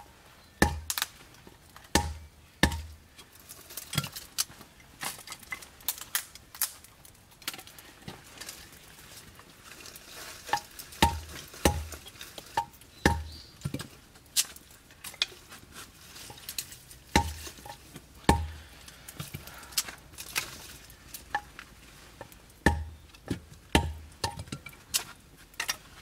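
Hatchet chopping firewood into small pieces: irregular sharp knocks of the blade striking wood, several of them heavier with a dull thud, and lighter ticks and taps in between.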